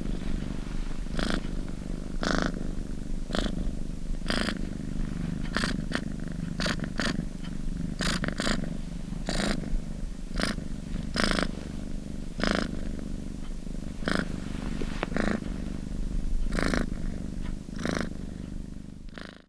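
Domestic cat purring close up: a steady low rumble, with a breathy rasp on each breath about once a second. It stops at the very end.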